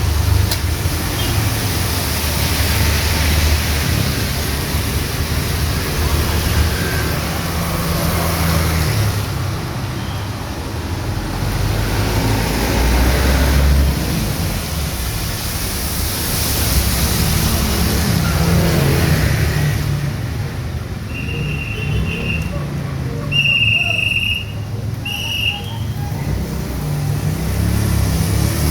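Heavy rain falling on a street as cars and motorbikes pass, their engines and tyres on the wet road swelling and fading. About two-thirds of the way through come three short, high beeps.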